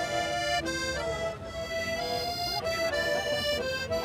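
Music: a tune played in long held notes that change pitch every half second or so.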